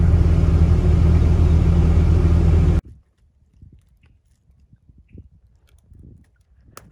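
Heavy diesel machine engine running steadily under load, then cut off abruptly about three seconds in. Afterwards only faint scattered crunches and soft thumps are heard, with one sharp click near the end.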